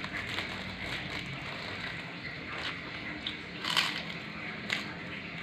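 Bites into a crisp fried kerupuk cracker, crunching as it breaks. The loudest crunch comes a little before four seconds in, and a smaller one follows about a second later.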